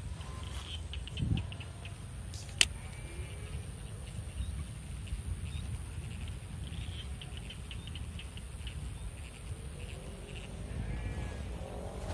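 Low wind rumble on the microphone, broken by a few sharp clicks, the loudest about two and a half seconds in, and by bursts of fast, high ticking. Near the end comes a wavering animal call.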